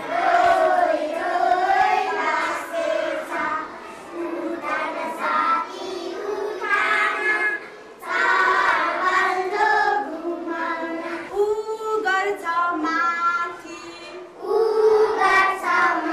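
A group of young children singing a song together in unison, in several phrases with short breaks between them.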